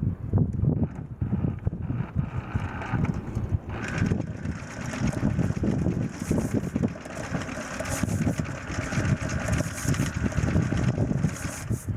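Boat engine running steadily, with wind and water hiss.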